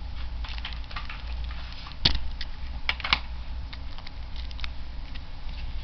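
Plastic shrink wrap crinkling and crackling as fingers pick and peel it off a card deck, with a few sharper snaps about two and three seconds in. A low steady hum runs underneath.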